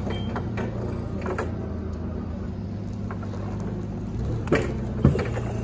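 Forklift engine running steadily, a low even hum, with two short knocks near the end.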